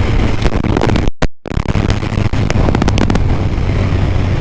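Yamaha FJR1300 motorcycle running at road speed with wind noise on a windshield-mounted camera, overlaid by a run of sharp knocks and rattles and a brief dropout about a second in: the camera's magnet clip mount working loose from the windshield.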